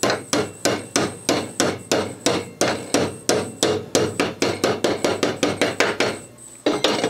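Hammer tapping a new bearing into a riding-mower deck spindle housing: a steady run of sharp taps, about three or four a second, that stops about six seconds in.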